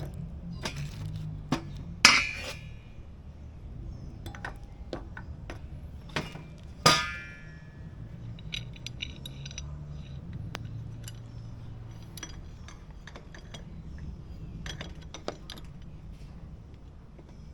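Metal tools and brake parts clinking and clicking during hands-on work on a motorcycle's rear brake caliper, with two sharp ringing clanks, about two seconds in and about seven seconds in, as metal is set down or knocked.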